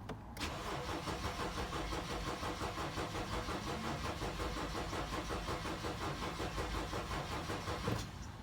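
2011 BMW X3 engine cranking on the starter motor with a rhythmic, even chug for about seven and a half seconds without catching, then the cranking stops suddenly. It is a crank-no-start fault.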